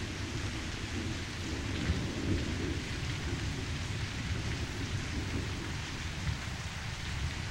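Steady rain with a low rumble of thunder underneath.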